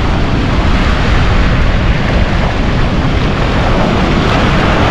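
Ocean surf washing up the beach with wind buffeting the microphone: a steady, loud rushing noise with no distinct events.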